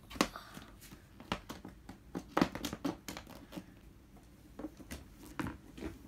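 Hard plastic panels of a Build-A-Bear toy wardrobe clicking and knocking as they are handled and fitted together, a run of irregular sharp knocks.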